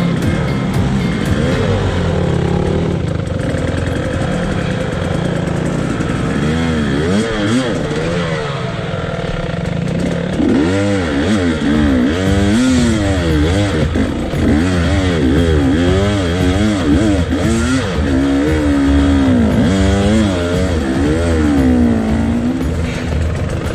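An engine running with a steady rumble, revved up and down over and over from about halfway through.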